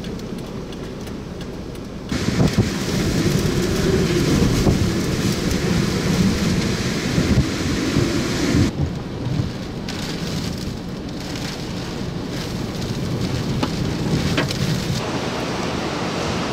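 Hurricane wind gusting with heavy rain: a dense rushing noise, heaviest at the low end. It jumps louder about two seconds in, swells in gusts, and eases somewhat past the middle.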